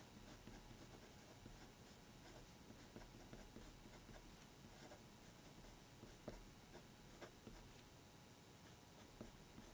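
Rotring Tikky 0.7 mm mechanical pencil with Berol HB lead writing letters on paper: faint, irregular scratches and small ticks of the lead stroking and lifting off the page.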